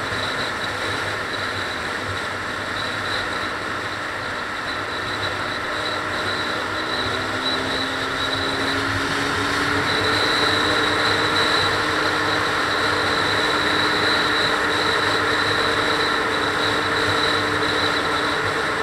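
Steady road and engine noise of a car driving at freeway speed, with a low tone that climbs as the car speeds up. About ten seconds in the noise gets louder as the car enters a road tunnel.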